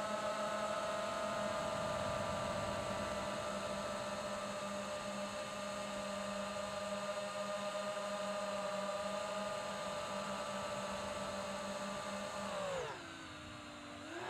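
Motor and propeller of a small radio-controlled aircraft whining at a steady pitch. Near the end the pitch falls steeply and the sound drops away as the throttle is pulled back, then it starts to climb again.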